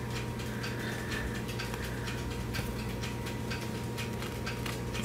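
Faint, quick scratchy ticking of a rubber-nubbed grooming glove working through cat fur and gathering the loose hair, over a faint steady hum.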